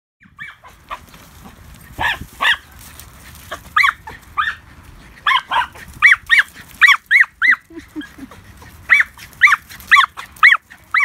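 Border Terrier barking: a string of about fifteen short, high-pitched barks, mostly in quick runs of two or three, starting about two seconds in with a brief pause a little past the middle.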